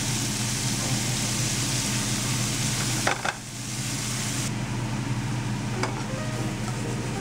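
Shrimp and minced garlic sizzling in hot oil in a nonstick frying pan, with a sharp knock about three seconds in and a lighter one near six seconds. The sizzle thins out after about four and a half seconds.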